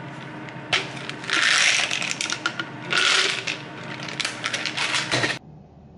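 Plastic bottle of calcium-magnesium-zinc tablets being handled: the cap is twisted with a click, and the tablets rattle and clatter against the plastic in two loud spells with scattered clicks between. The sound cuts off suddenly about five seconds in.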